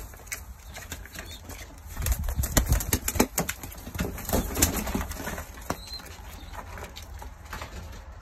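A pigeon flapping its wings in a quick flurry of wingbeats, loudest from about two to five seconds in, with fainter rustles and clicks around it.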